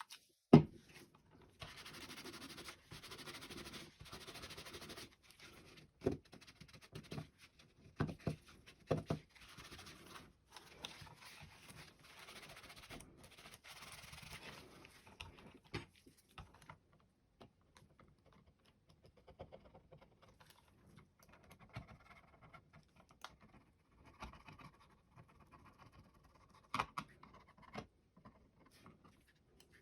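Paper wetted with isopropyl alcohol rubbing and scrubbing the plastic skates on the underside of a computer mouse, in stretches of scrubbing with a few sharp knocks as the mouse is handled. After about fifteen seconds the rubbing gives way to fainter scratching and taps.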